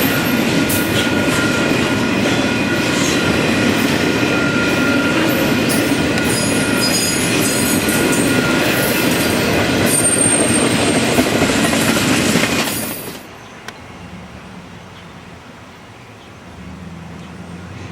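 Freight train cars rolling past with clickety-clack and steady high-pitched wheel squeal, cutting off suddenly about thirteen seconds in as the last car goes by, leaving a quiet low rumble.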